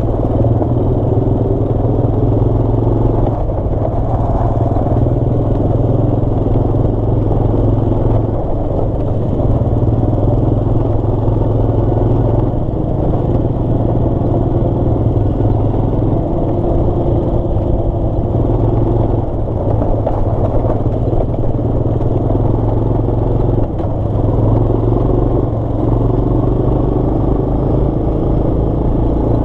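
Honda ATV engine running under way at a fairly steady speed, heard from on board the quad, its pitch rising and falling slightly as the throttle changes.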